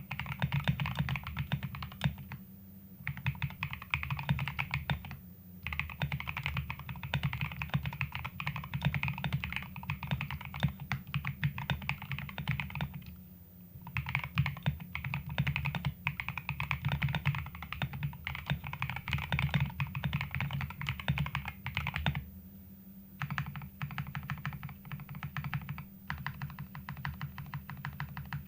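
GKS68 60% mechanical keyboard with MMD Princess v2 linear switches and PBT keycaps, its case dampened with neoprene and Poron foam, being typed on quickly in runs of several seconds with short pauses between them.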